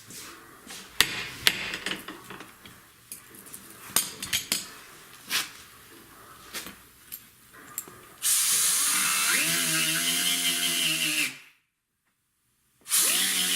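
A handheld electric power tool running twice: about three seconds with its motor pitch rising as it spins up, then, after a brief pause, a shorter second run. Before it, scattered clicks and knocks of tools being handled.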